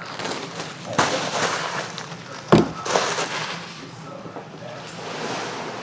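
Packaging being handled: plastic wrap rustling and a box knocked about, with a few sharp knocks, the loudest a thump about two and a half seconds in.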